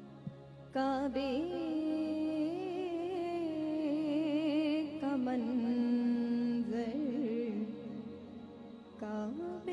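A woman singing a slow, ornamented melody solo into a microphone, her long held notes wavering, over a low steady drone. She takes short breaks for breath just before a second in and near the end.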